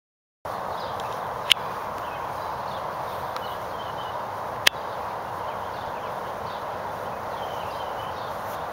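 Outdoor ambience starting after half a second of silence: a steady rushing background noise with faint high chirps. Two sharp clicks come through, about one and a half seconds in and again near five seconds.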